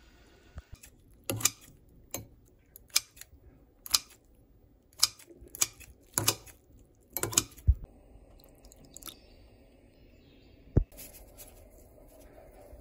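Kitchen scissors snipping through peeled raw shrimp in a bowl: about a dozen crisp cuts at roughly one a second, stopping about nine seconds in. A single dull knock follows near the end.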